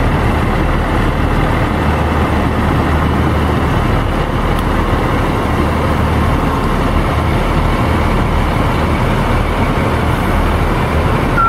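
Concrete mixer truck's diesel engine running, a steady loud rumble with a low hum.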